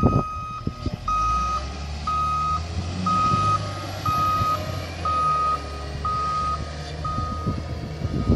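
Caterpillar wheel loader's reversing alarm beeping about once a second, each beep about half a second long, over the low steady running of its diesel engine: the loader is backing up.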